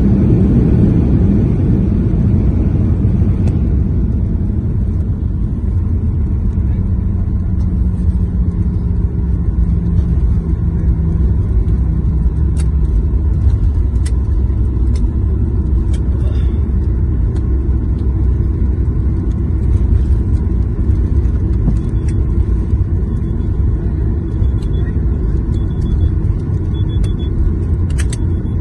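Airliner cabin noise during the landing rollout: a steady low rumble of the engines and the wheels on the runway as the plane slows after touchdown. It is a little fuller in the first few seconds, then settles into a lower, even rumble.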